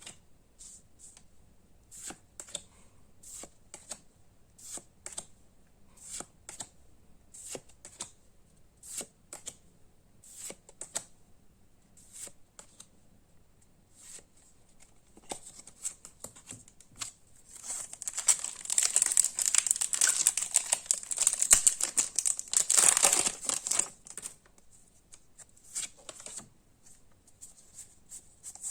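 Trading cards being flicked over one at a time in a run of light clicks, then about two-thirds of the way through a foil booster pack wrapper crinkling and tearing open for several seconds, after which the card flicks resume.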